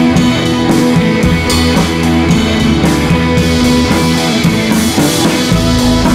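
Background music with guitar and a steady drum beat; a heavier bass comes in near the end.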